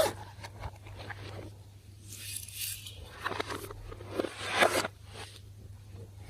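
Slime being squished, pressed and stretched by hands, giving a run of irregular wet scraping strokes. The loudest stroke comes about four and a half seconds in.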